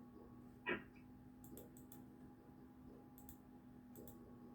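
Near silence with a low steady hum, a few faint scattered clicks, and one brief soft sound, falling in pitch, a little under a second in.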